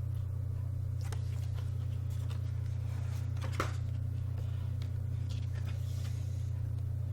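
Soft paper rustles and a small tap as pages of a doujinshi art book are turned by hand, the tap about three and a half seconds in. A steady low hum runs underneath and is the loudest thing throughout.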